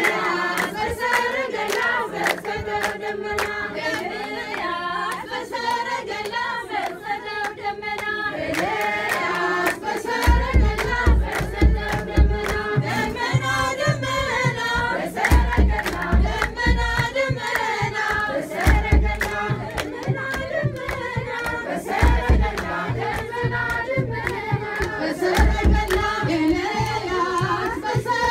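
A group of women singing an Ethiopian Orthodox hymn (mezmur) together, with hand clapping throughout. About a third of the way in, a kebero drum joins with deep beats that come in repeated runs.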